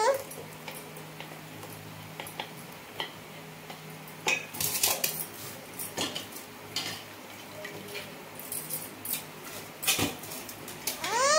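A stainless-steel mixer-grinder jar clinking and knocking against aluminium pots as chakuli pitha batter is poured and scraped out of it: scattered clinks and knocks, busiest about four seconds in and again near ten seconds. Near the end comes a brief high-pitched rising vocal call.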